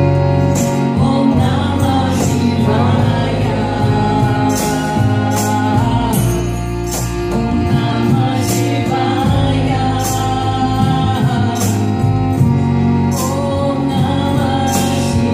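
Live kirtan music: voices singing a chant over steady held low tones and percussion.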